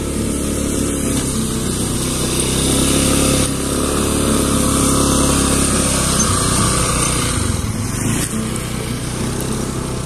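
Small automatic motor scooter engine running steadily as it is ridden, its note shifting slightly a couple of times.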